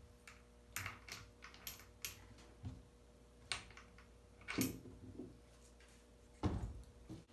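Scattered light clicks and taps of small hard parts being handled, about a dozen irregular knocks, two louder ones about four and a half and six and a half seconds in.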